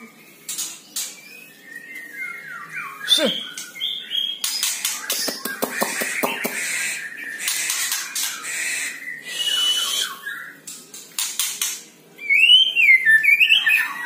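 White-rumped shama (murai batu) calling and singing: whistled notes gliding up and down, mixed with harsh, rattling notes. The loudest run of whistles comes near the end.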